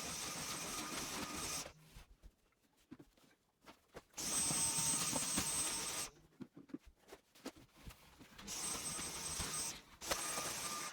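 Steady mechanical whirring with a faint high whine, heard in three or four stretches that start and stop abruptly, with much quieter gaps between them.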